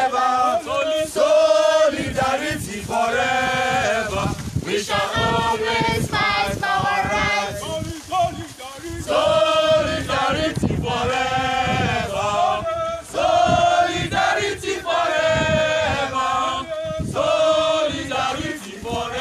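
A crowd of students singing together in chorus, in sung phrases of a second or two with no break.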